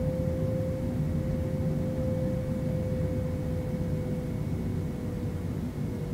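Boeing 767 jet engines heard from inside the cabin: a steady low rumble with a clear engine whine that holds level and eases slightly lower near the end.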